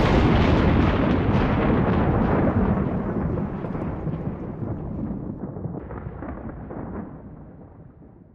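Thunderclap sound effect: a sudden crash of thunder that trails off into a long rumble, slowly dying away over about eight seconds.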